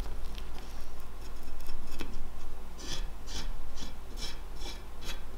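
Hand tool scraping in short rasping strokes, irregular at first and then settling into about two strokes a second in the second half.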